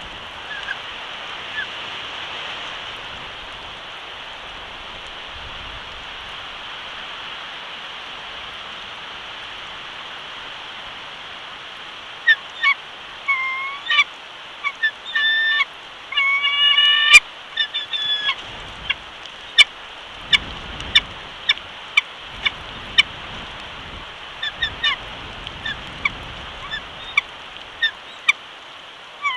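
Steady wind and rain noise, then from about twelve seconds in a bald eagle calling: a few short piping notes, followed by a run of quick sharp chirps that are the loudest sounds.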